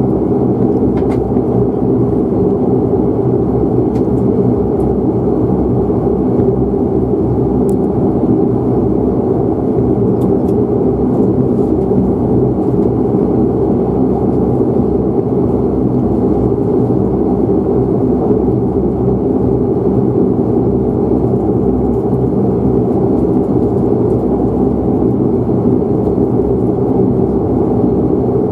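Dash 8 Q400's Pratt & Whitney PW150A turboprop and six-bladed propeller at ground idle, heard from inside the cabin as a steady hum made of several low tones.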